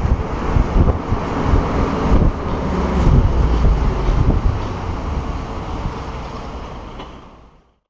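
Suzuki Jimny JA11 with a tuned 660cc engine, running while driving, with wind buffeting the open car's microphone. The sound fades away near the end.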